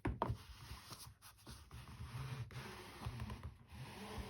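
Hands rubbing and pressing the glued covering down into a binder's spine crease: soft scratchy rubbing with small clicks, after a sharp knock right at the start.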